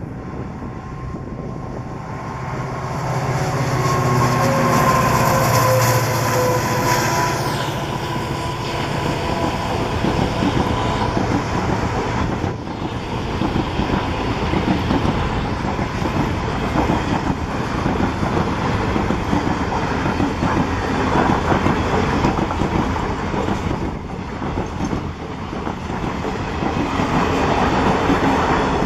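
WDG4 diesel-electric locomotive, with its EMD 16-cylinder two-stroke engine, passing close by; its engine note drops slightly in pitch as it goes past. It is followed by passenger coaches rolling by with a steady clickety-clack of wheels over the rail joints.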